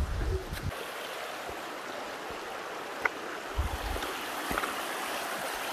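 Shallow mountain creek rippling over stones, a steady rushing hiss. Brief low rumbles on the microphone near the start and again about three and a half seconds in.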